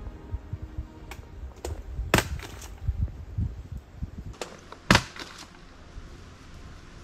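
Dry sticks and twigs snapping in the bush: a run of sharp cracks with the loudest about five seconds in, over soft low thuds during the first four seconds.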